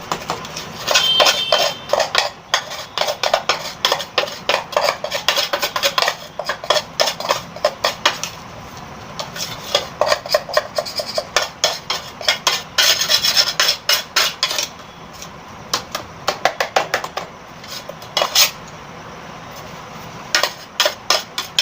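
Spoon scraping and clinking against the inside of an electric kettle, scooping out roasted sattu mixture: a busy run of quick scrapes and knocks with brief pauses, the spoon working at the slightly scorched bottom.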